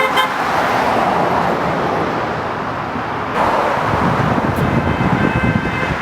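Passing road traffic, with a short car-horn toot right at the start and a second, fainter horn about five seconds in.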